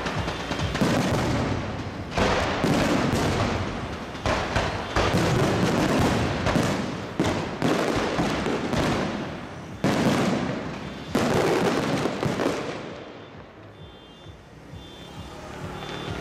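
Aerial firework shells bursting in quick succession, a dense run of bangs that thins out and drops quieter about 13 seconds in.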